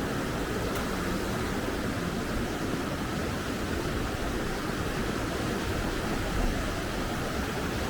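River Derwent running high and fast, the water coming down at some force with a steady roar of rushing water.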